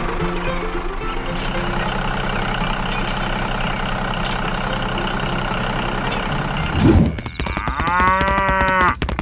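A tractor engine running steadily, then a short thump about seven seconds in. A cow moos once near the end, rising and then falling in pitch.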